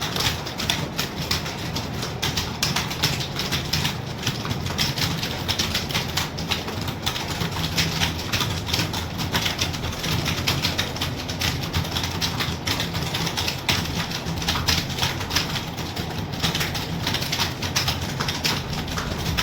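Fast, continuous typing on a keyboard: many irregular key clicks a second with no pause.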